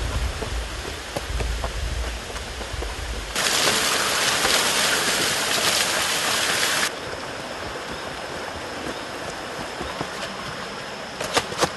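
Steady rush of running water in a rainforest, much louder for about three and a half seconds in the middle, where it starts and stops abruptly, with a low rumble on the microphone before it and a few sharp knocks near the end.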